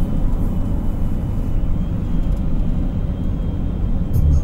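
Steady low road and engine rumble inside a car cabin at highway speed. Low bass notes of music come in near the end.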